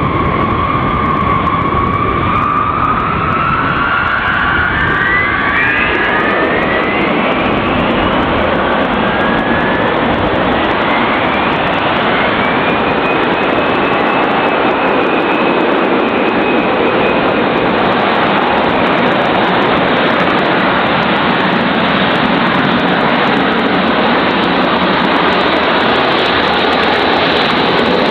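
A B-52 Stratofortress's eight turbofan jet engines running at take-off power, a loud steady jet roar. Whines rise in pitch over the first several seconds and again around ten seconds in as the engines spool up for the take-off roll.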